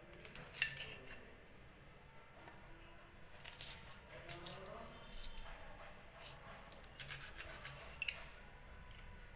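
Knife cutting and scraping raw green mango, with scattered sharp clicks and short scrapes.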